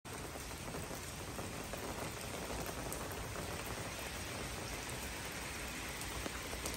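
Steady rain falling on a sidewalk and into puddles: an even hiss of countless drops, with scattered single drop ticks.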